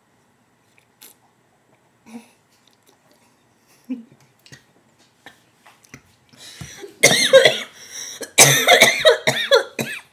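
Faint scattered clicks, then about seven seconds in two loud fits of a person coughing, with a spoon in the mouth while trying to drink water to stop hiccups.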